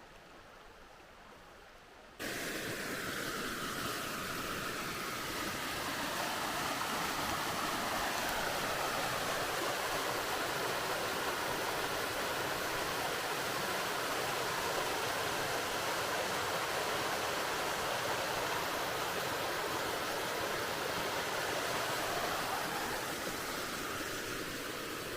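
Waterfall on a mountain creek rushing steadily. The sound comes in abruptly about two seconds in, after a fainter stretch.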